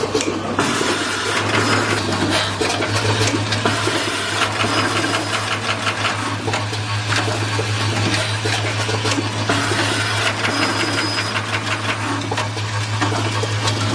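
Automatic wire-harness crimping and housing-inserting machine running, with a steady low hum from its vibratory bowl feeder and the rattle of plastic connector housings in the bowl. Rapid rhythmic mechanical clicking comes and goes over the hum, strongest through the middle.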